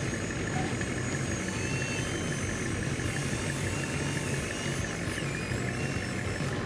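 Steady engine idling sound, as of the model tractor, even and unbroken, with a thin high whine held above it. A few faint chirps come and go in the middle.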